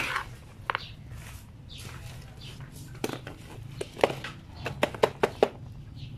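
Loose potting soil (loam mixed with rice hulls) being tipped from a small pot into a plastic pot and firmed around a plant by hand. About three seconds in comes a run of sharp light clicks and taps as the pots are handled.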